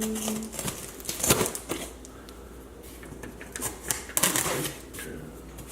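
Cardboard meal-kit delivery box being opened by hand: crackly scraping, tearing and rustling of cardboard and packaging, in bursts about a second in and again around four seconds in.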